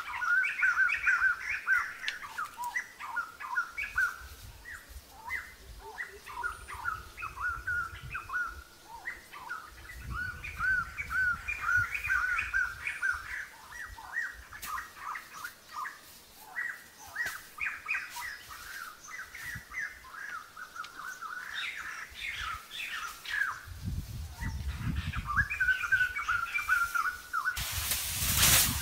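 Wild birds chirping and singing in many short, repeated calls, with occasional low rumbles and a loud burst of noise near the end.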